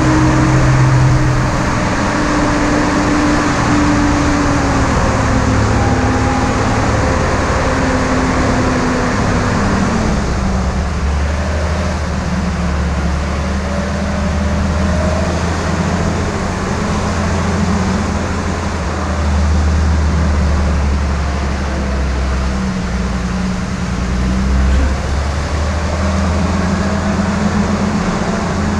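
Jeep CJ5 engine running at low speed as it crawls over gravel. Its note drops about ten seconds in and then holds steady.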